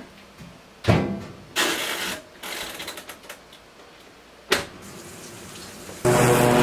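Knocks and clicks from a top-loading washing machine being loaded and set: a sharp knock about a second in, a longer clatter just after, and a single sharp click past the middle. Near the end a riding lawn mower's engine cuts in, running steadily.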